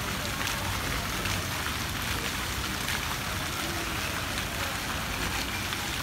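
Fountain's row of vertical water jets splashing steadily down into its shallow basin.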